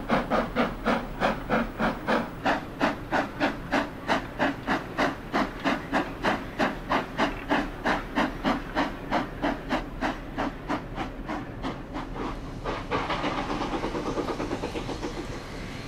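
Colliery saddle-tank steam locomotive working hard, its chimney exhaust beating evenly at about four beats a second over a steady hiss of steam. About thirteen seconds in, the beats grow fainter and quicker.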